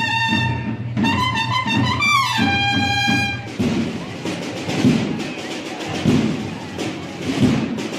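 Marching brass band with trumpets playing sustained notes, the chord sliding down together a little over two seconds in and breaking off about a second later. After that comes street noise with dull low thumps roughly once a second.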